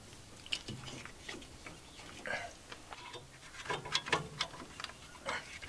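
Irwin Quick-Grip one-handed bar clamps being tightened onto angle iron: an irregular run of clicks and light metal taps as the trigger is squeezed and the clamp jaws and bar shift against the steel.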